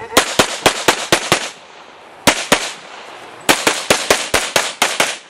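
Semi-automatic Saiga 12 12-gauge shotgun fired rapidly: a quick string of about seven shots at roughly four a second, a pair after a short pause, then another fast string of about nine shots.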